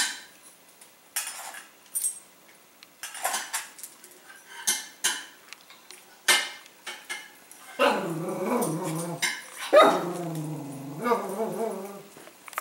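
A Cavalier King Charles Spaniel at his metal food bowl: a run of sharp clicks and clinks from the stainless steel bowl and his claws on the tile, then from about eight seconds in long, bending whines and barks. He is fussing at his bowl rather than eating, wanting his food poured out on the floor.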